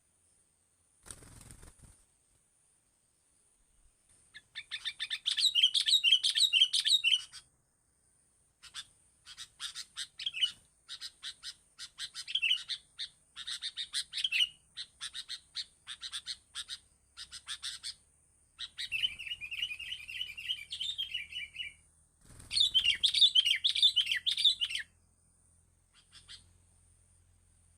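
A small songbird chirping in rapid bursts, with scattered single chirps between them and a buzzy trill partway through.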